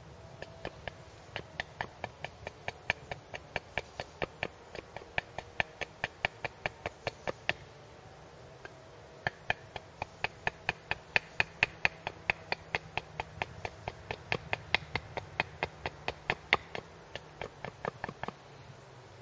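A small hatchet making light, quick chops into a wooden stick, about three sharp knocks a second, in two long runs with a short pause near the middle. This is the hand-carving of a wooden splitting wedge to a taper.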